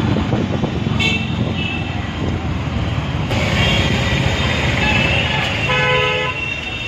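City street traffic heard from a moving vehicle: a steady engine and road rumble, with car horns honking several times, briefly about a second in, longer around the middle, and loudest near the end.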